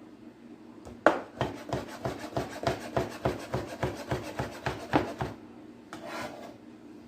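Knife slicing through sausage onto a cutting board in quick, even strokes, about four a second for some four seconds, followed near the end by a short scrape.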